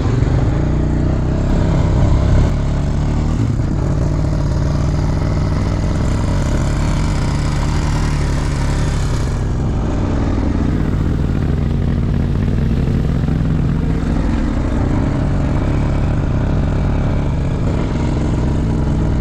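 ATV engine running as it drives along, with a brief rise in revs about two seconds in. A steady hiss sits over the engine from about four to nine seconds.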